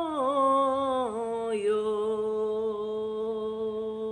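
A woman singing a Javanese tembang macapat, Asmaradana in slendro sanga, solo and unaccompanied: a wavering melisma that steps downward over the first second and a half, then one long held note.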